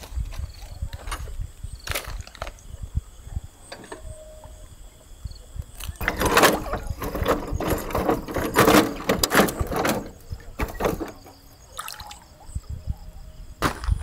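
Wading and splashing in shallow water as a metal-framed fishing platform is lowered in and set level, with scattered knocks of its frame and legs. The splashing is loudest and busiest in the middle.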